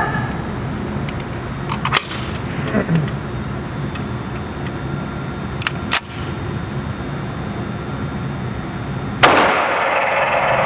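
Gunshots at a pistol range: sharp cracks a few seconds apart, the loudest near the end trailing off in a long hiss-like tail, over a steady low hum.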